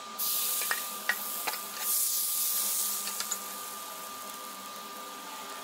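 Rice batter for palappam sizzling and hissing in a hot nonstick appam pan, with a few light clicks in the first second and a half. The sizzle is loudest for the first three seconds, then settles to a softer, steady hiss as the batter sets with holes.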